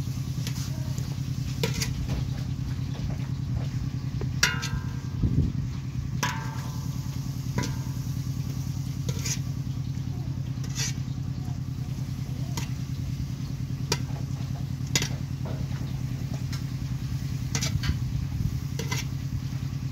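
A small engine running steadily throughout, with scattered sharp clinks and knocks of cooking utensils against pots.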